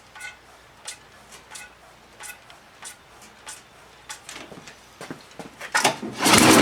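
Primer bulb on a Craftsman snowblower engine pressed about seven times in a steady rhythm, each press a short squeaky click. Near the end the engine is pull-started and catches loudly, its first start after the carburetor was replaced.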